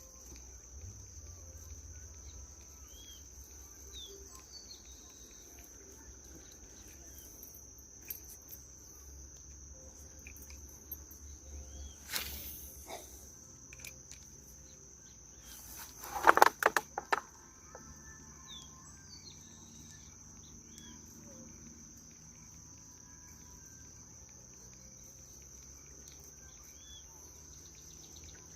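Insects trilling in a steady high-pitched chorus, with a few faint bird chirps. A brief loud noise comes about twelve seconds in, and a louder, short flurry of sounds around sixteen to seventeen seconds.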